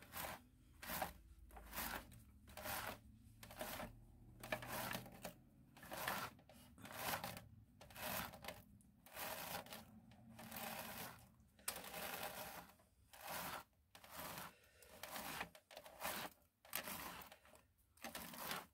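Soft-bristled wet-dry hairbrush swishing through a doll's kinked, matted mane in repeated faint strokes, about one to one and a half a second.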